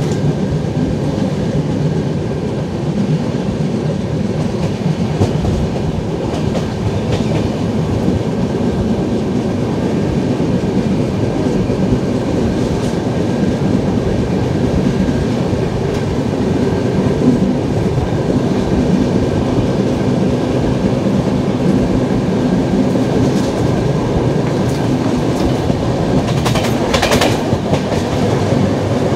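LHB passenger coach running on the track: a steady rumble of wheels on rail with clickety-clack over the joints, and a brief louder rush about three seconds before the end.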